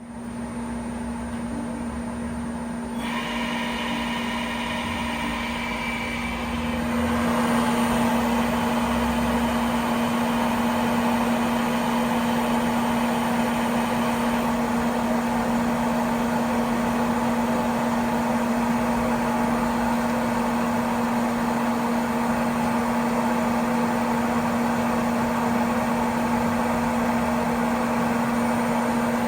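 Citizen Cincom Swiss-type CNC lathe running: a steady machine hum with a strong low tone, stepping up louder and fuller about three seconds in and again about seven seconds in, then holding steady.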